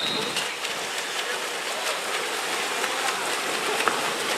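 Steady wash of splashing water as water polo players swim and churn in the pool, with faint scattered splashes.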